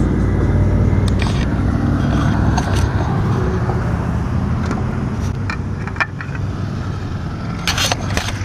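Low, steady rumble of a motor vehicle's engine, with scattered clicks and a brief clatter near the end.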